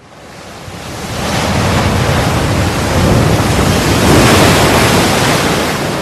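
A rushing, wind-like noise that fades in from silence, swells to its loudest about four seconds in and then eases off a little.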